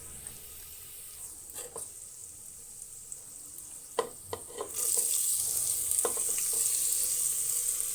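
Hot oil with its tempering of mustard seeds, chillies and curry leaves sizzling in a pan, with a few clinks. About two-thirds of the way through, the sizzle jumps to a much louder, steady hiss as chopped onions go into the oil.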